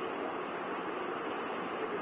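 Floodwater rushing steadily down a desert wash, an even unbroken roar of moving water.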